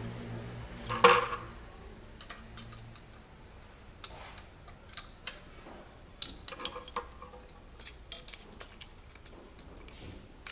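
Scattered metallic clicks and clinks of hand tools on the valve gear while the rocker-arm valve clearances are set with a feeler gauge. A low hum fades out about three seconds in.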